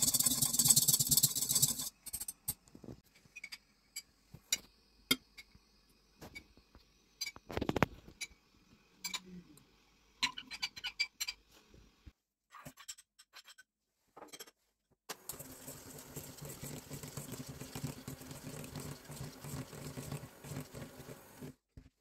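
A wire whisk beating a thin liquid in a stainless steel bowl, a fast scraping rattle for about two seconds, followed by scattered clicks and taps. For the last six seconds or so, a steady whirring with a low hum from an electric mixer beating cream cheese in a metal bowl.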